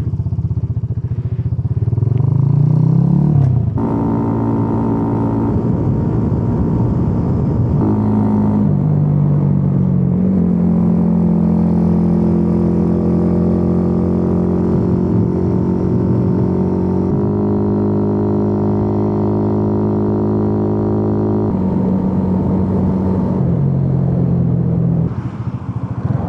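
Yamaha YB-1 moped's small single-cylinder four-stroke engine under way. It pulls up in pitch in the first few seconds, drops at a shift, then cruises at a steady pitch with a few more step changes and eases off near the end before picking up again.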